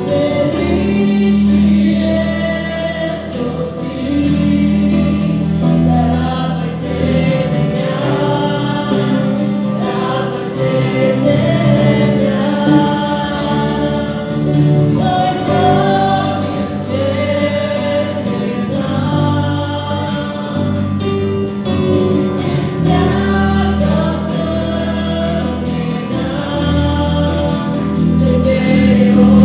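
Live worship song: a group of mixed male and female voices singing together into microphones, accompanied by acoustic guitar, bass guitar and keyboard, with a steady bass line underneath.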